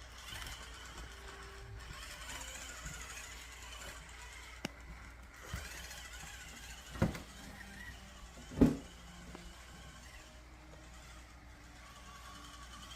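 Small electric motor of an RC rock crawler running quietly under a steady low hum, with four short knocks in the second half, the loudest about two-thirds of the way through.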